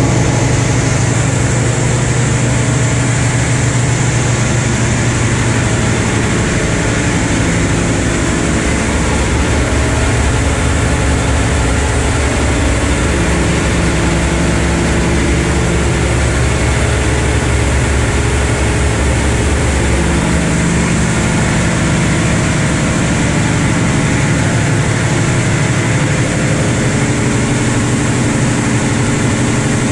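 Ship's engine-room machinery running: a loud, steady drone with a low hum under a broad hiss, unbroken throughout.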